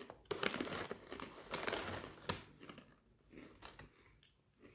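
A pretzel bag crinkling as a hand rummages inside it for a pretzel, the crinkling loudest over the first couple of seconds, then fainter rustles.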